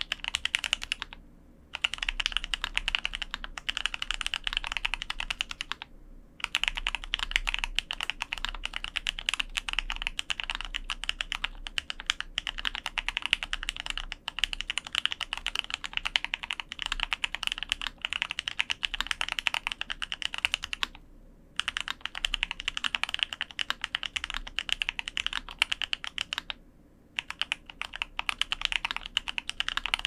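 Fast, continuous typing on an F1-8X custom mechanical keyboard fitted with lubed Drop Holy Panda X tactile switches on an FR-4 plate in a foam-dampened polycarbonate-bottom case. The keystrokes form a dense stream of clicks, broken by four short pauses of about half a second.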